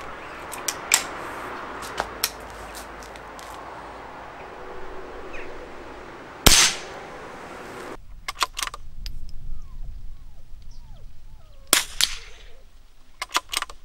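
Metallic clicks as a Weihrauch HW77 spring-piston air rifle is handled and readied, then one sharp shot from it about six and a half seconds in, the loudest sound. After that, clicks and a single shot from a Weihrauch HW66 .22lr bolt-action rifle about twelve seconds in, followed by a few quick clicks of the action near the end.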